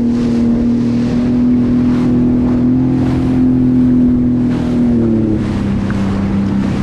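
Jet ski engine running under way, a steady engine tone that drops a little in pitch about five seconds in as it eases off, with rushing wind and water noise swelling and fading over it.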